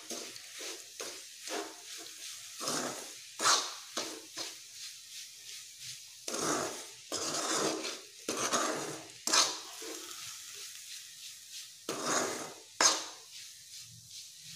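Steel spatula scraping and stirring grated coconut cooked with sugar in a kadai, in irregular strokes. This is the mixture being cooked down on a low flame until it is sticky enough to shape into laddus.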